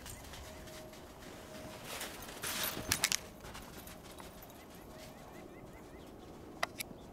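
A ball launcher is swung to throw a tennis ball for a dog: a short whoosh with two sharp clicks about three seconds in. Crunching steps in snow continue around it, with a few more sharp clicks near the end.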